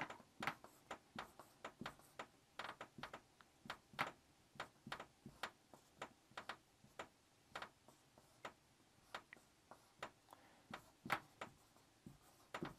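Marker pen tip tapping and scratching on the drawing surface as lines and zigzags are drawn: a string of faint, irregular ticks, about two or three a second.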